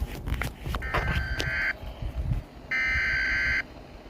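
Emergency Alert System SAME header: two bursts of harsh, screeching digital data tones, each under a second long and about a second apart. Some clicks sound during the first second and a half.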